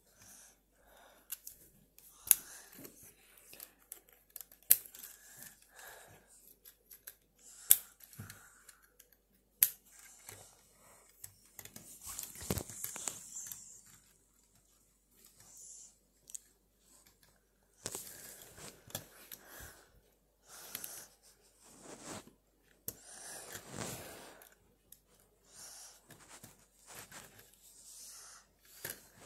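Lego bricks being handled and pressed together: several sharp plastic clicks in the first half, and rustling handling noise as parts are fitted onto a small Lego forklift.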